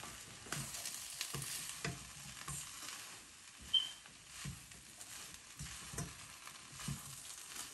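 A spatula stirring and scraping potato and shredded chicken filling around a nonstick wok, with a faint sizzle from the frying mix. The spatula gives light, irregular knocks against the pan every second or so.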